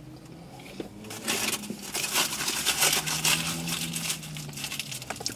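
Food wrapping crumpled and crinkled by hand, a dense crackle starting about a second in and lasting some three seconds.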